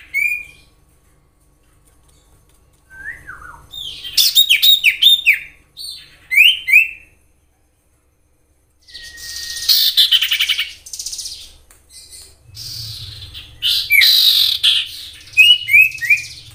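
Common iora calling: bursts of quick, sharp whistled notes, many sliding downward, with short pauses between the bursts. A harsher rasping chatter comes in the middle of the stretch and again near the end.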